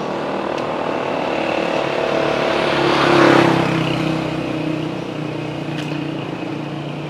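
Motor vehicle engine running steadily, with a vehicle passing that swells to its loudest about three seconds in and then fades.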